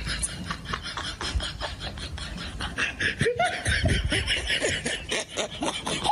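Human laughter in quick, short bursts, loudest from about halfway through.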